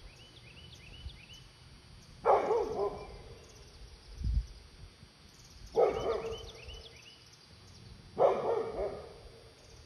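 Old guard dog barking at a black bear to run it off: three single barks a few seconds apart, each trailing off with an echo.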